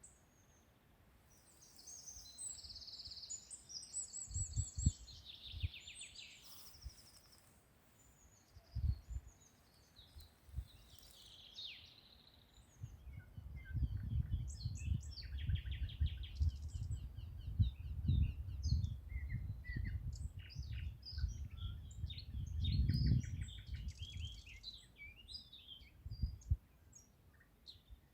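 Several songbirds singing and chirping, with trills, short rapid runs of repeated notes and single high chirps. Uneven low rumbling comes and goes underneath and is heaviest in the second half.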